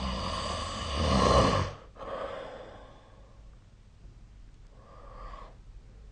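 A sleeping person snoring: one loud snore lasting about two seconds that swells to its loudest just before it cuts off. A shorter breath follows, and a fainter breath comes near the end.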